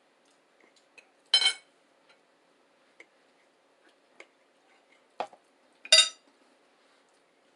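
Cutlery clinking against a plate: two loud, short ringing clinks about four and a half seconds apart, with small clicks and taps between them.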